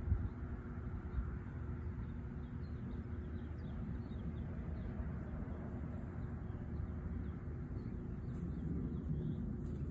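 Outdoor ambience: small birds chirping in quick, short notes over a steady low rumble, the chirps thinning out about six seconds in.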